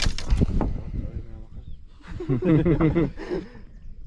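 A man's voice calling out briefly, untranscribed, about two seconds in, after a few sharp knocks at the start, with a low rumble underneath.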